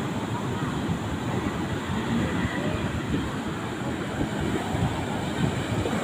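Fishing boat's engine running steadily under a rush of wind and sea on the microphone.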